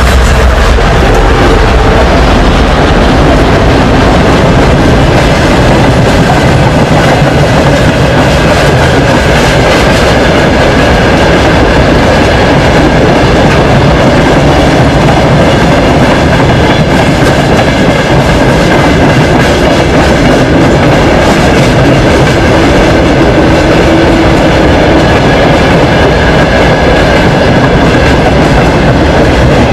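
Freight train of open mineral hopper wagons rolling past close by: a steady rumble of wheels on rail with a continuous clickety-clack over rail joints and points. The low drone of the 2M62U diesel locomotives eases about a second in as they pass.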